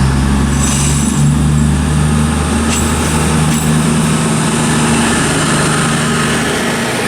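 CrossCountry Class 220 Voyager diesel multiple unit pulling out, its underfloor Cummins diesel engines giving a steady, loud low drone, with a faint high squeal about a second in and a short click near the three-second mark.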